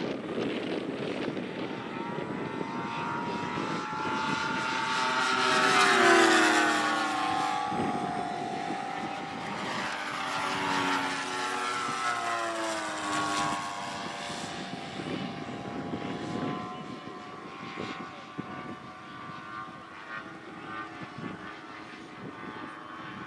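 Propeller engines of two RC model aerobatic planes flying display passes together, their pitch sliding up and down as they pass. The loudest pass comes about six seconds in, with the engine note dropping in pitch as the plane goes by.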